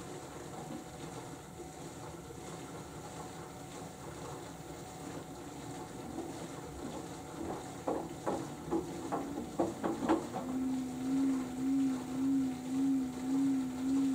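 LG AiDD Steam direct-drive washing machine during its final spin. A steady motor hum drops away, a run of clicks and knocks comes from the drum about eight to ten seconds in, and then the hum comes back, pulsing about one and a half times a second.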